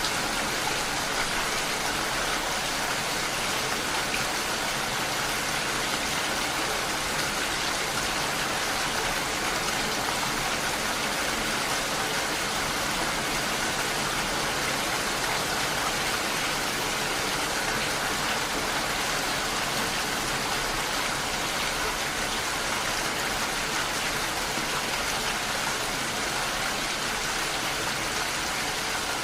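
Steady rain on window glass: an even hiss of drops that holds level throughout.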